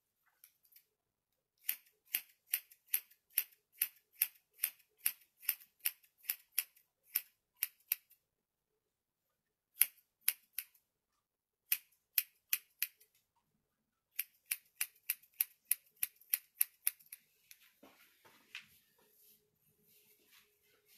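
Hand scissors snipping hair in quick runs of about two or three cuts a second, with short pauses between the runs.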